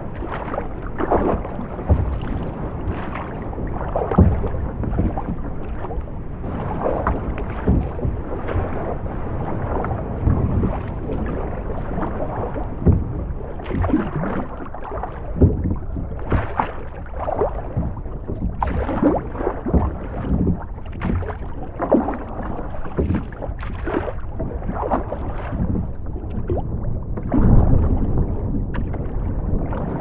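Storm waves sloshing and slapping against a boat's hull, heard muffled from inside the cabin as a steady wash broken by frequent short splashes. A deeper, louder rumble swells near the end.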